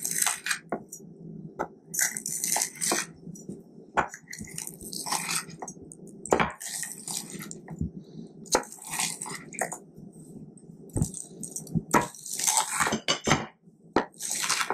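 Chef's knife cutting through the crisp crust of fried chicken on a wooden cutting board: a crackling crunch with each cut, with sharp knocks of the blade on the board, repeated about every one and a half to two seconds, some seven or eight times.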